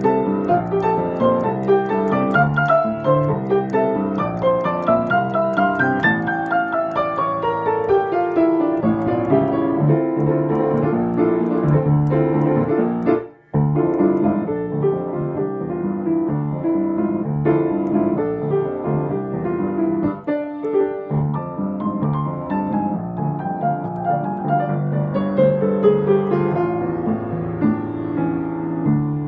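Fast piano music with rapid rising and falling runs of notes, briefly cutting out about thirteen seconds in.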